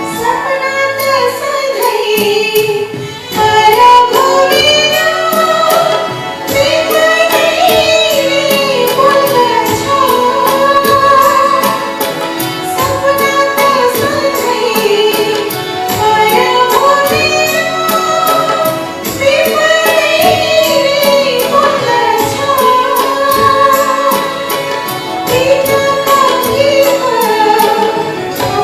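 A woman singing a Nepali song with a live band, her sung phrases rising and falling over a steady percussion beat.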